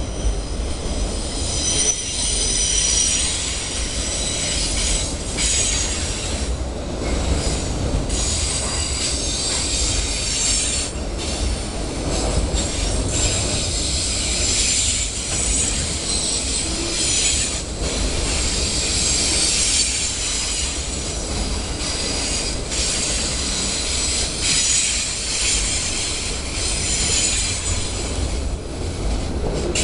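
Freight train of autorack cars rolling past at close range: a steady low rumble of steel wheels on rail, with a high-pitched wavering squeal from the wheels over it.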